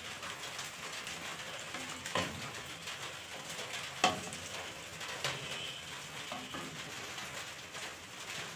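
Wooden spatula stirring cabbage and noodles in a stainless-steel pot of simmering chicken soup, with a steady hiss from the hot broth and three sharp knocks of the spatula against the pot.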